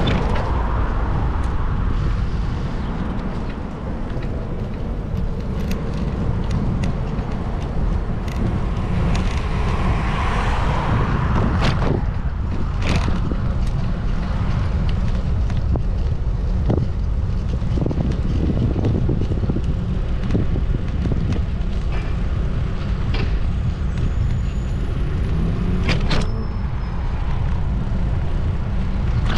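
Steady low rumble of vehicle and road noise, with scattered clicks and knocks.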